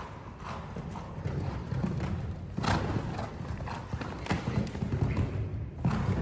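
Horse cantering on sand arena footing: repeated hoofbeats, with a few sharper hits about two and a half, four and six seconds in.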